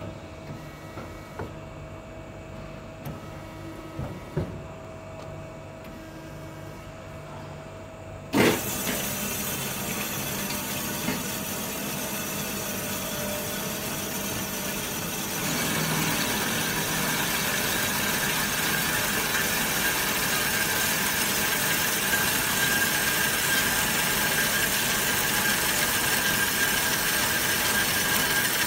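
Automatic metal band saw cutting a solid round steel bar with coolant flowing. A quieter machine hum with a few small clicks turns suddenly louder about eight seconds in, then the saw runs steadily. It grows louder again about halfway, with a steady high whine, as the blade works through the bar.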